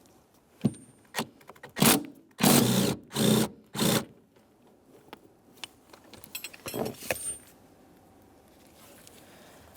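A cordless impact wrench runs in several short bursts, removing a 13 mm nut that holds the lower door hinge. A few light metallic clinks follow a few seconds later.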